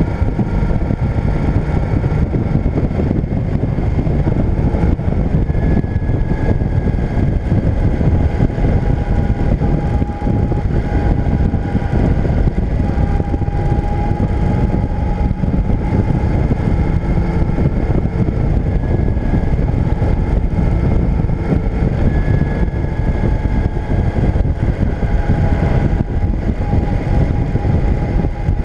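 Motorcycle engine running steadily while riding at road speed, mixed with wind rush and road noise on the bike-mounted camera's microphone, with a faint whine that shifts slightly in pitch.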